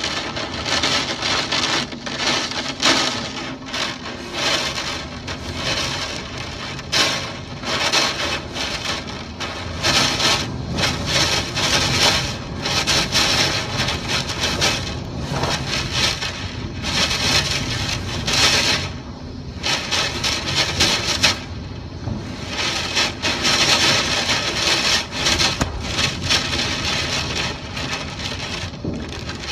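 Typhoon wind and rain, the wind coming in repeated gusts that surge and ease every second or two, with a couple of brief lulls in the second half.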